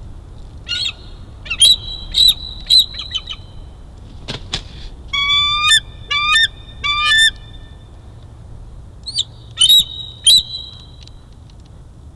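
Bald eagle calling: bursts of high, thin chirping and piping notes in several groups, with one sharp click partway through.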